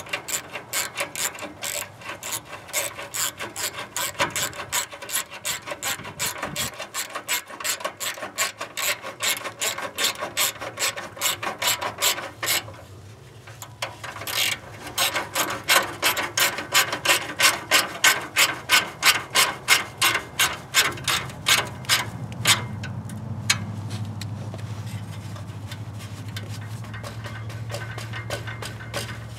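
Hand ratchet wrench clicking in a fast, even run as a fastener on a car's exhaust heat shield is tightened. The clicking pauses briefly about halfway, comes back louder, then stops, leaving a steady low hum.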